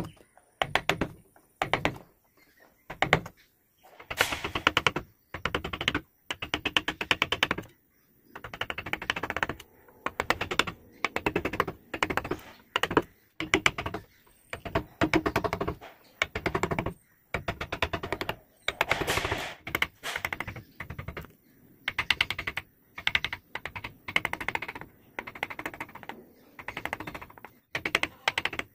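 Flat wood-carving chisel cutting into a hardwood relief in short strokes, each stroke a burst of rapid clicking as chips lift, repeating with brief pauses.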